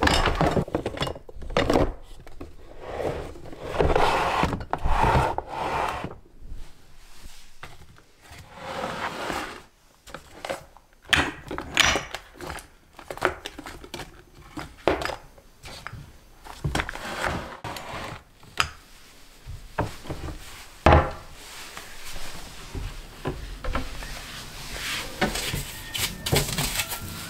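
Kitchen containers, bottles and pots being moved about in cabinets: a run of irregular knocks, clicks and rustles, with one sharper knock about two-thirds of the way through.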